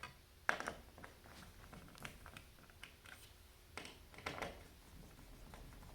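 Faint clicks and scraping of hands working on an ecobee thermostat base plate and its wires, with one sharper click about half a second in.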